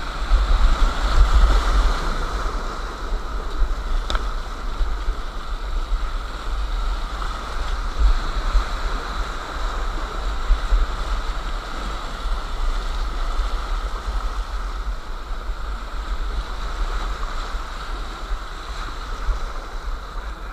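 Whitewater rapids rushing around a kayak, heard through an action camera's microphone, with a heavy low rumble from the water buffeting the mic; slightly louder in the first couple of seconds.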